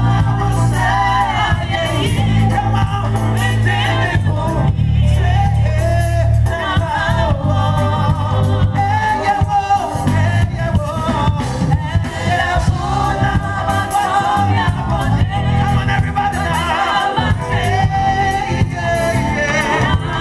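Live gospel music: a band of drums, bass guitar, electric guitar and keyboard playing under several voices singing together, with held bass notes and a steady drum beat.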